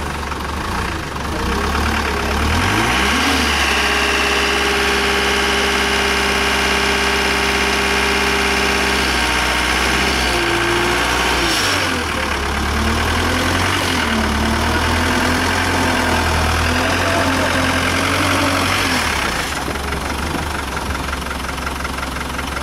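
Off-road competition 4x4's engine revving under load as the truck climbs the bank: the revs rise a couple of seconds in and are held steady for several seconds, fall away around ten seconds in, then climb again and waver up and down before dropping back near the end.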